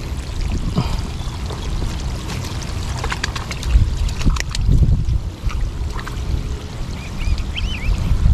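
Shallow seawater sloshing and trickling as someone wades and picks up shellfish, over a steady low rumble, with a few sharp clicks about three to four seconds in and some short high chirps near the end.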